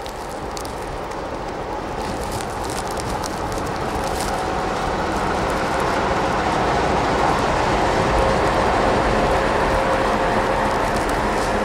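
Diesel locomotive running light as it pushes through deep snow and passes close by, its engine and rumble growing louder to a peak about eight seconds in, then easing as it goes past, with a faint steady hum under it.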